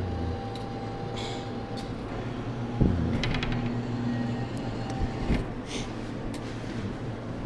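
Arcade background: a steady hum of machines with a few held electronic tones, a cluster of sharp clicks and a thud about three seconds in, and another knock a couple of seconds later, typical of a claw machine's mechanism at work.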